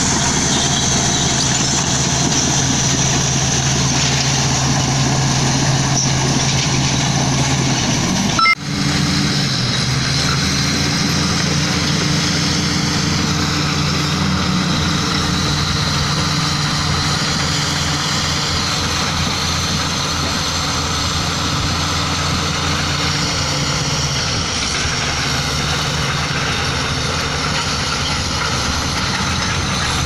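Crawler bulldozer's diesel engine running steadily, with a low hum. The sound breaks off for a moment about eight seconds in, then carries on.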